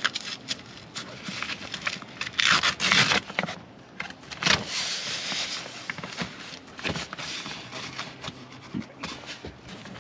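Velcro hook-and-loop strips on a fabric seat-back cover being ripped apart and fastened. There are two long rasping rips, about two seconds in and about four and a half seconds in, with shorter crackles and fabric rustling between them.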